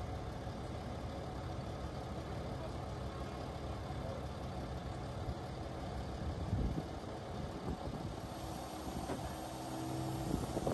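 Diesel engine of a Scania crane truck running steadily while it drives the hydraulics of a Fassi knuckle-boom crane holding a boat on straps. There are a couple of short knocks, and a higher steady hum joins about eight seconds in.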